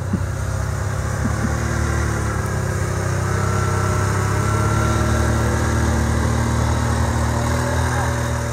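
Small off-road vehicle engine running steadily at a low idle-like hum.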